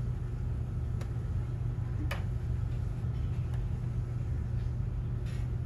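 Steady low room rumble with three brief clicks scattered through it.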